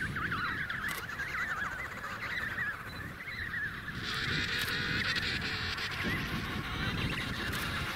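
Emperor penguin colony calling: many overlapping warbling calls at once, growing louder and fuller about four seconds in.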